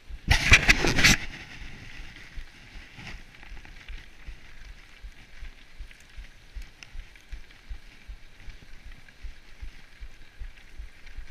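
Bicycle on winter tyres rolling over packed snow, with a steady hiss of tyre noise and low rumbling wind on the microphone. A loud, rough burst of noise comes about half a second in and lasts under a second.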